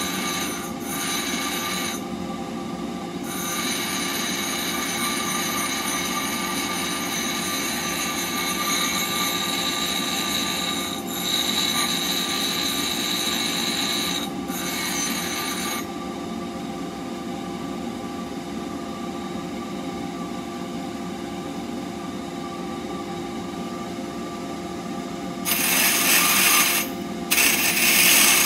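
Bench grinder motor running with a steady hum while a steel woodturning blade is pressed against the spinning wheel, giving a hissing grind. The grind breaks off briefly a few times as the blade is lifted, and gets louder near the end.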